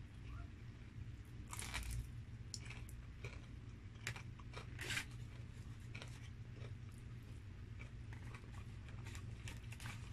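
Close-up mouth sounds of chewing and biting crispy breaded fried chicken: irregular wet crunches, the loudest about two seconds in and again about five seconds in. A steady low hum runs underneath.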